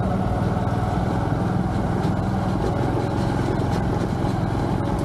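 Honda Trail 125's air-cooled single-cylinder engine running steadily at an even pace while the motorcycle rides along a dirt trail, with a fast, even pulsing.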